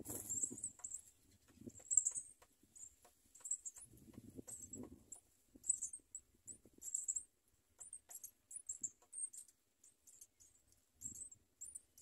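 House sparrow nestlings giving thin, very high begging squeaks in many short bursts throughout. A soft low rustle comes at the start and again about four seconds in.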